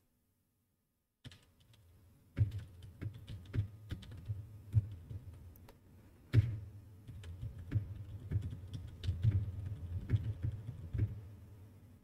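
Typing on a Das Keyboard 4 Ultimate mechanical keyboard, starting about a second in: quick key clicks with a low thud, a few strokes louder than the rest. It is heard through RNNoise noise suppression, which leaves almost nothing of the loud dehumidifier noise between the keystrokes.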